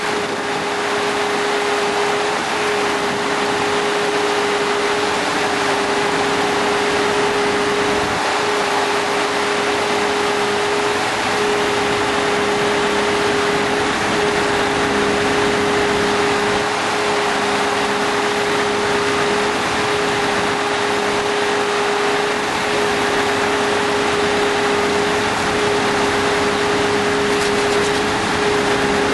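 A machine running steadily with a constant mechanical hum, holding one pitch throughout with a slight regular pulse about every three seconds.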